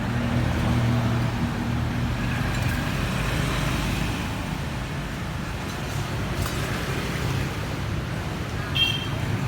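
Steady road traffic noise with engines running, and a brief high beep near the end.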